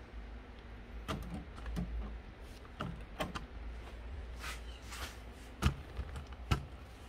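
Clicks and knocks of an inkjet printer's plastic parts being handled as the printhead and cartridges are fitted, ending in two sharper knocks near the end, over a steady low hum.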